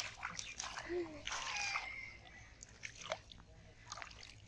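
Splashing in shallow muddy water as hands grab at a fish, in several short bursts over the first two seconds, then a few lighter splashes.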